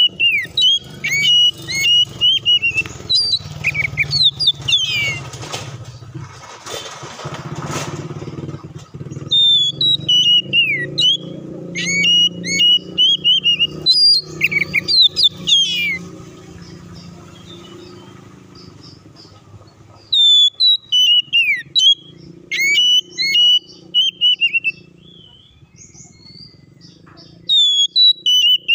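Oriental magpie-robin (kacer) singing loud, varied whistled phrases with rapid rising and falling notes and trills, in four bouts broken by short pauses. A motor vehicle's engine rumbles underneath for the first two-thirds, with a brief hiss of noise around a quarter of the way in.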